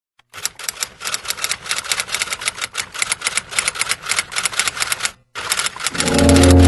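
Typewriter sound effect: a fast, continuous run of key clacks that breaks off briefly about five seconds in, then carries on. Near the end, sustained music with a deep bass note swells in under the clacking.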